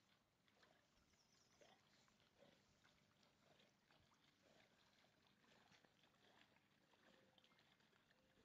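Near silence, with faint lake water lapping and small scattered splashes.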